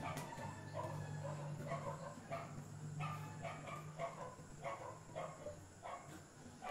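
Repeated short animal calls, about ten spread across several seconds, over a steady low hum that fades out about halfway through.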